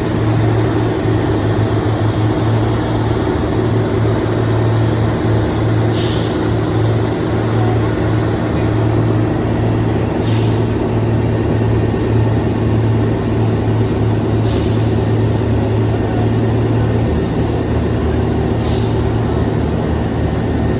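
Heavy vehicle engine running steadily with a low drone, most likely the M3G amphibious rig during its ride. A short hiss recurs about every four seconds.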